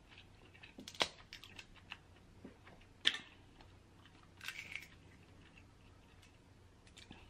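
Cooked snow crab leg shell being cracked and picked apart by hand: sharp cracks about one and three seconds in, a short crackle around the middle, and light clicks of shell between them.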